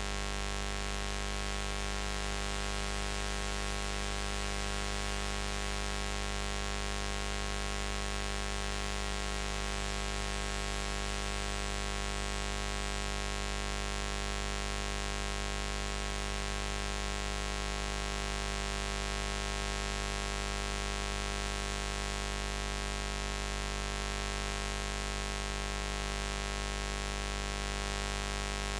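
Continuous low buzz, steady and unchanging, made of many evenly spaced overtones with the deepest strongest, over a faint hiss.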